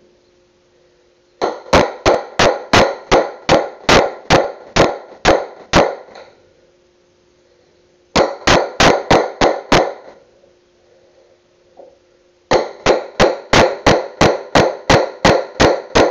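Hammer striking a wood chisel, driving it into a wooden plank: three runs of sharp, even blows, about two to three a second, with short pauses between the runs.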